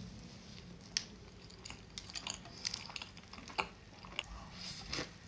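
Close-miked chewing of food, with irregular sharp crunchy clicks every half second or so.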